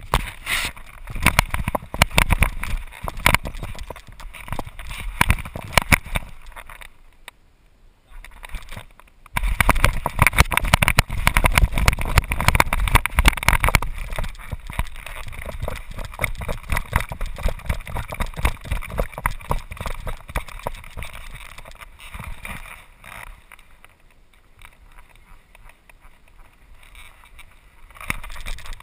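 A GoPro strapped to a dog's back, jostling and buffeted by wind as the dog runs over grass, with rapid knocks from its footfalls and the camera mount. The noise comes in loud stretches with a brief lull about eight seconds in and a quieter spell near the end.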